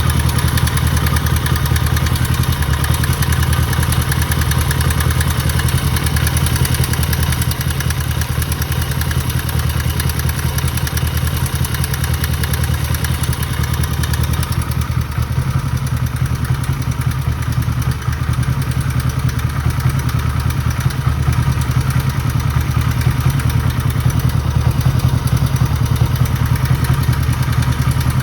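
1969 Honda CB350 K1's air-cooled parallel-twin engine running steadily, with a bit of a rattle in the engine that the owner calls a knock.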